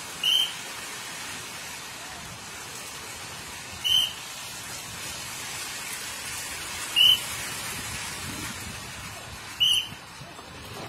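Steady rain hiss, broken by four short, high-pitched peeps spaced about three seconds apart.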